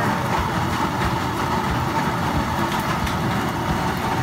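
Cooking oil being poured from a plastic jug into a saucepan, over a steady rumbling background noise.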